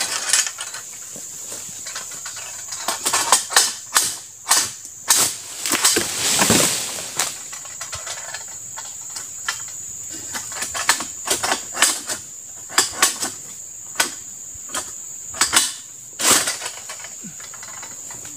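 Mechanical egrek sentak harvesting pole, the sickle jerked against the oil palm's frond stalks, giving a string of sharp, irregular clacks and knocks, some in quick clusters. A steady high-pitched whine runs underneath.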